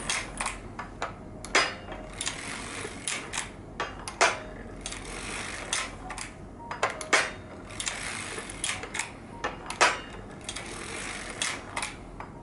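Harrison semi-automatic circular sock knitting machine being hand-cranked back and forth while knitting a heel. Its cams, needles and crank make irregular sharp clicks and clacks, often one to three a second, over a light mechanical rattle.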